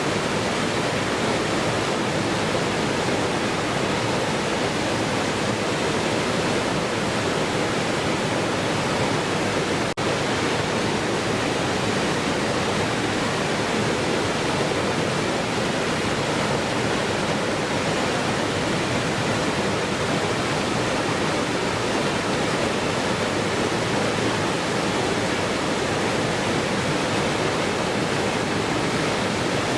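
Waterfall rushing in a steady, even roar of falling water, with a momentary dip in level about ten seconds in.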